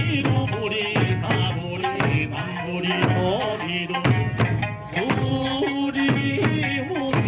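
Music with drum hits under a pitched melody.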